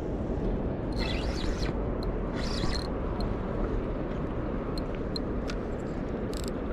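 Steady low rumble of wind on the microphone, with a few brief scratchy rustles and faint ticks from handling the rod and spinning reel.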